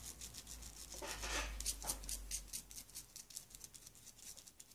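Toothbrush bristles scrubbing a Tri-Meter's pH probe in quick back-and-forth strokes, several a second, to clear off old nutrient residue. The scratching is faint, a little louder about a second in, and fades near the end.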